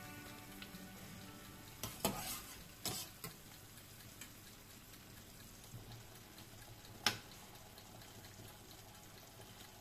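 Drained short tube pasta tipped from a wire spider strainer into a pan of tomato and aubergine sauce: a few clicks and soft clatters as the pasta lands and the strainer touches the pan, over a faint sizzle from the sauce. A single sharp knock comes about seven seconds in.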